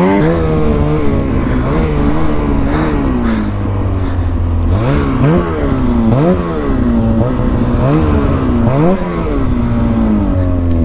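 Mountain snowmobile engine revving up and down over and over as the throttle is worked while riding through deep powder.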